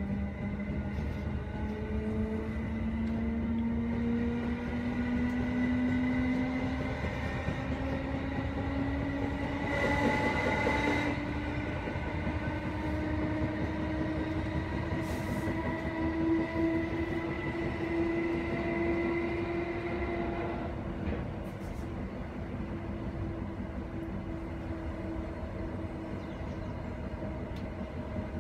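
Class 319 electric multiple unit's traction motors whining under power, the whine climbing slowly and steadily in pitch as the train gathers speed, over the rumble of wheels on track. There is a brief louder rush of noise around ten seconds in. The whine dies away about twenty seconds in, leaving the rumble of the train running on.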